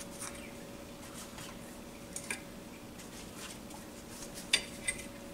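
Soft taps and light clicks as pan-fried dumplings are set down on a stainless steel folding steamer basket, over a faint steady hum.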